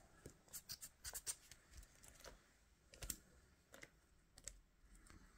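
Near silence broken by faint, irregular small clicks and taps: a hand handling a Traxxas TRX-4M Bronco 1/18 RC crawler's plastic chassis and tyres.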